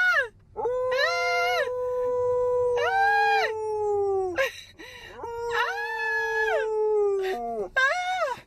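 A dog howling in long, drawn-out notes: two long howls with shorter ones at the start and near the end. A second, higher voice rises and falls over the long notes, howling along.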